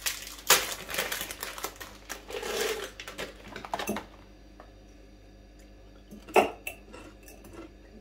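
Dry, crunchy cheddar snacks poured from a crinkly plastic packet into a glass jar, rattling against the glass, for about the first four seconds. After that, a few light clicks and one sharp clink about six and a half seconds in.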